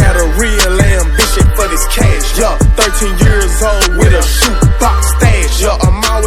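Hip hop-style music with a deep sustained bass, a steady drum beat and a gliding melodic line over it.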